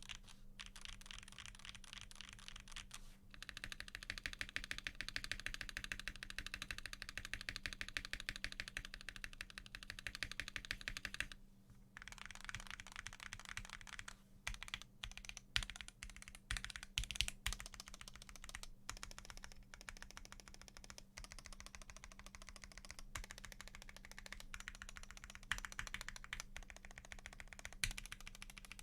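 Fast typing on a custom mechanical keyboard: an acrylic Tofu65 case with an aluminium plate, lubed Gateron Box Black Ink linear switches, PBT keycaps and no foam. A dense stream of keystrokes with a few brief pauses.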